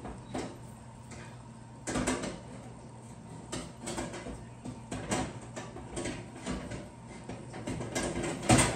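Wire oven rack being worked in a wall oven's side runners: a run of irregular metal clanks and scrapes as it is lifted and shifted up a level, with the loudest clank near the end.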